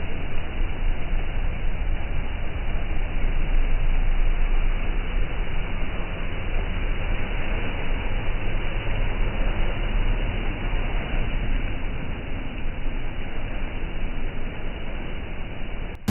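Jeep Wrangler Rubicon's engine running under load as its mud tyres spin and churn through deep swamp mud, a steady, noisy rumble.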